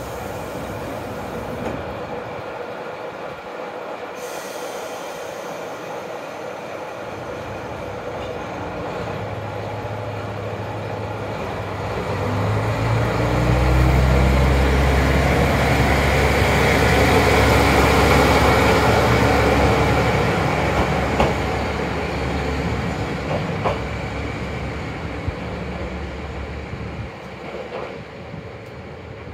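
Hitachinaka Seaside Railway KiHa 37100 diesel railcar idling at the platform, then pulling away. Its engine note climbs in steps as it accelerates. It is loudest as the car passes close by, then fades steadily as it draws off down the line.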